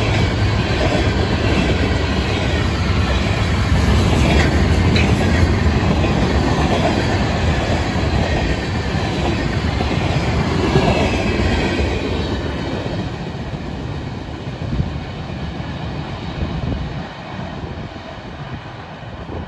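Freight cars of a freight train rolling past, a steady clatter of wheels on the rails. The sound fades over the last several seconds as the end of the train passes and draws away.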